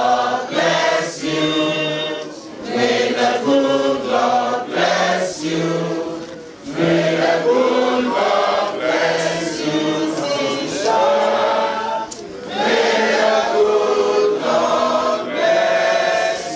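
A group of men and women singing together like a choir, holding notes in phrases with short breaks between them.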